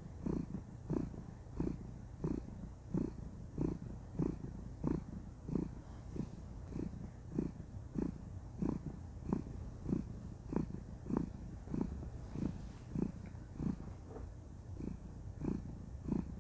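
Domestic cat purring steadily and contentedly, close up, the purr swelling and easing in a regular rhythm about one and a half times a second as she breathes in and out.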